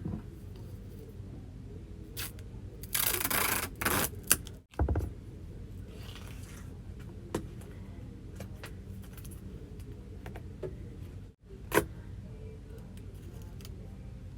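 Handling noises in a small room: a scraping, rustling stretch about three seconds in and a few sharp clicks and knocks, over a steady low hum.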